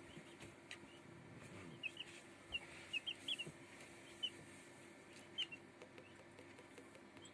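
Newly hatched Marans chicks peeping: about a dozen short, high, quiet peeps, most of them bunched together in the middle, with a few scattered ones after.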